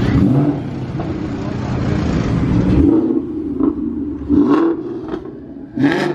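Vehicle engine running with a low rumble, then revved in several short blips over the last three seconds.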